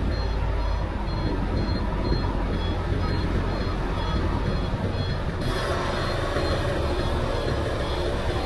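Diesel engines of a Komatsu PC500LC excavator, standing with its loaded bucket raised, and of a dump truck running steadily, with the truck's reversing alarm beeping at an even pace for about the first five seconds as it backs up to be loaded. About five and a half seconds in, a rush of hiss-like noise comes up over the engines.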